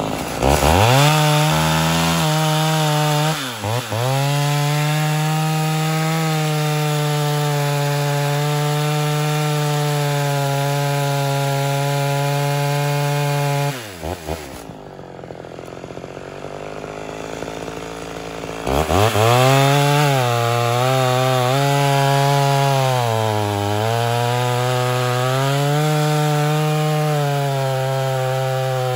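Ported Homelite Super XL Auto two-stroke chainsaw cutting a log at full throttle. It holds a steady high pitch, drops back to idle for several seconds about halfway, then revs up and cuts again, the pitch dipping briefly under load, before it falls back to idle at the end.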